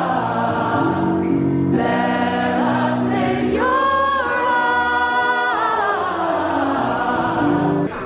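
A mixed group of male and female voices singing together in held chords, the long notes shifting to a new chord every second or two; it cuts off abruptly near the end.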